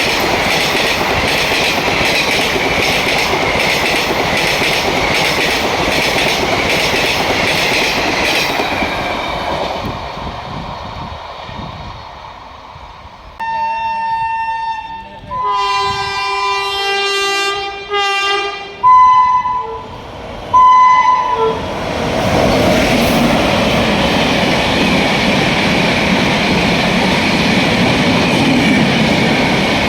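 A passing express clatters over the rail joints, then fades away. Next an Indian Railways WAP-7 electric locomotive sounds its horn in about four blasts, two long then two short. The rumble of the train then builds up loud and holds steady as it rushes past.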